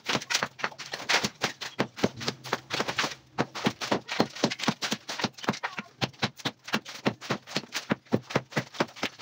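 Hammer blows chipping concrete, fast and regular at about four to five strikes a second, as a seat for concrete hollow blocks is chiselled out of the masonry.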